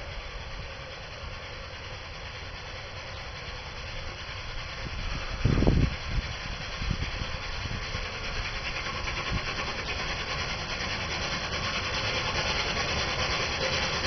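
Park-railway steam locomotive (Krupp, 1950) approaching out of sight: a steady noisy sound that grows slowly louder, with a dull thump about five and a half seconds in.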